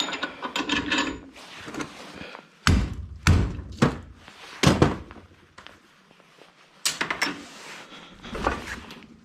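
A series of irregular thunks and knocks as scrap parts are worked loose and handled, the heaviest four coming in the middle seconds, then a few lighter clicks and clatters.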